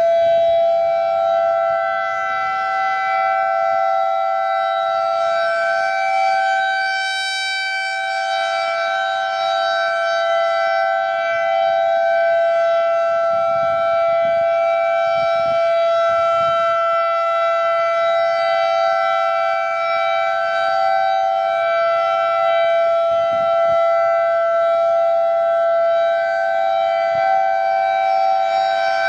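Federal Signal 2001-SRN and ASC I-Force civil defense sirens sounding the steady alert signal: a loud, unbroken chord of close pitches held level with no rise or fall. The upper tones brighten briefly about seven seconds in.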